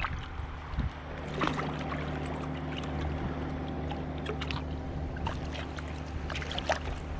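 A motor running steadily at an even pitch, a low hum with no change in speed. Small water splashes and lapping sound close by a few times, around a second and a half in and again near the end.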